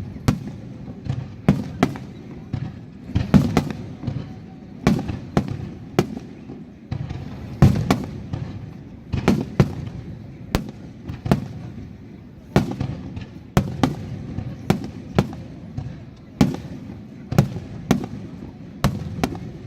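Aerial fireworks shells bursting in a fireworks display: a steady series of sharp bangs, often two or three in quick succession, over a continuous low rumble of echoing reports.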